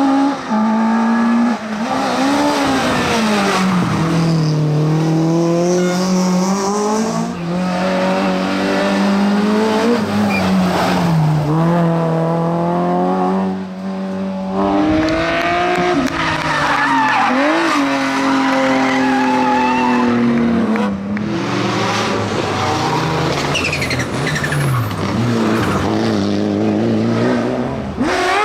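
Competition car engine at full throttle, revving up and dropping back again and again as it shifts through the gears.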